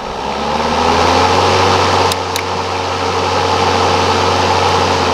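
Ryobi 40-volt brushless cordless lawn mower's motor and blade coming up to speed in the first second after the start button is pressed, then running steadily. Two light clicks about two seconds in.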